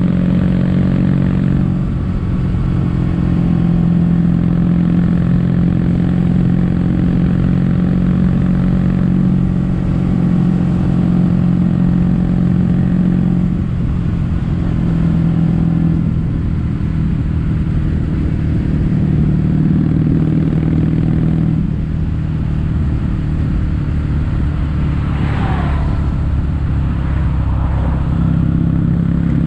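Kawasaki W800's air-cooled parallel-twin engine running on the road through Yamato stainless-steel Cabton-style silencers, a steady exhaust note that drops and picks back up several times as throttle or gear changes.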